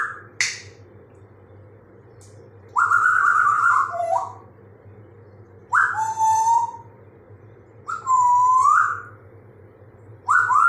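African grey parrot whistling: four drawn-out whistled calls, each about a second long and spaced a couple of seconds apart, some bending down and up in pitch. A single sharp click comes just before the first call.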